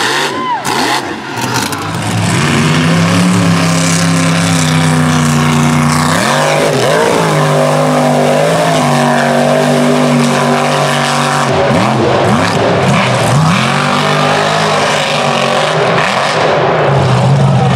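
Supercharged mud truck engines running at high revs, the pitch dropping and climbing back several times as the throttle is lifted and reapplied.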